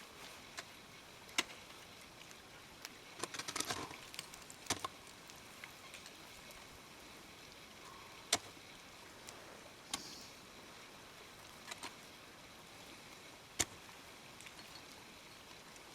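Sharp single knocks every second or few, with a quick flurry about three to four seconds in: ice tools and crampons striking the ice of a frozen waterfall during a climb.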